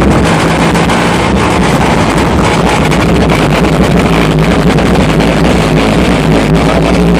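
A car audio system playing bass at very high volume, so loud that it overloads the microphone into a dense, steady distorted roar.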